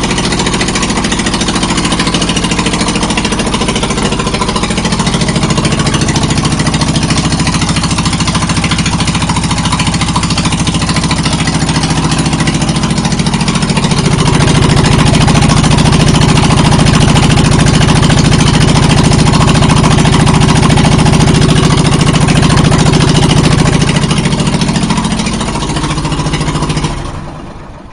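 John Deere riding mower's twin-cylinder OHV engine idling with no muffler on, a loud open-exhaust sound. It gets louder about halfway through, then stops near the end.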